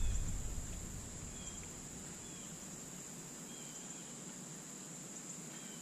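Insects singing in a steady high-pitched drone, with a few faint short chirps over it. A low rumble fades out in the first second.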